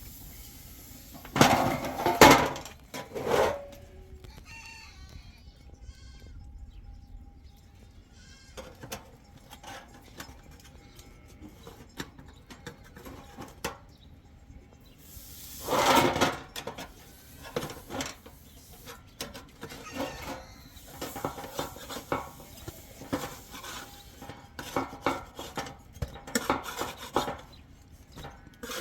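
Goats bleating: loud calls about a second and a half in, again near three seconds, and once more about sixteen seconds in. Scattered light clicks and taps fill the later part.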